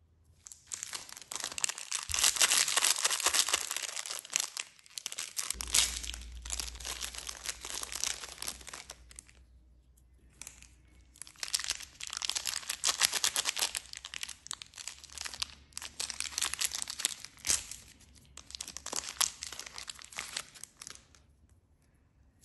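Wrapper of a Krówka milk fudge candy crinkling and crackling as fingers unwrap it, in two long stretches with a short pause about ten seconds in.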